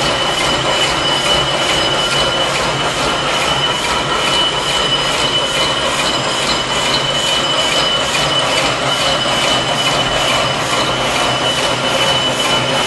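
CS-C barbed wire machine running steadily as it twists the line wires and wraps the barbs: a continuous mechanical clatter with a regular fast ticking and a steady high-pitched whine over it.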